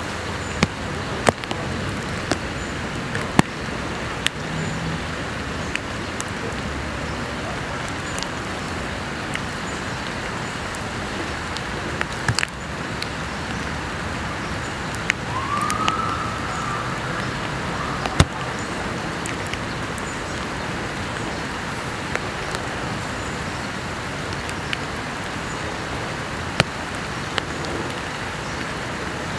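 Steady rain with a hiss of city traffic behind it, and scattered sharp taps of drops landing. About halfway through there is a brief rising-and-falling tone.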